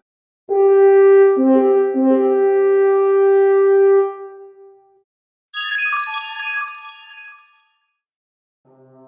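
Apple iPhone ringtone and alert tones played one after another: a held, chord-like tone for about four seconds with low notes joining in, then a short descending run of high chime-like notes, then a brief gap before another tone swells in near the end.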